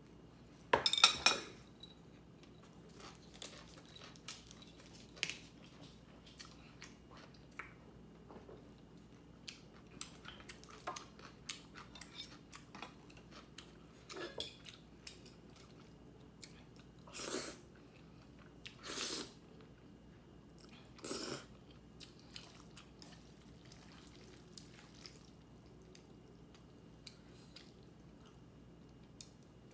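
Close-miked eating: a person chewing with many small clicks and crunches, and a few louder half-second bursts, the loudest about a second in and several more in the middle.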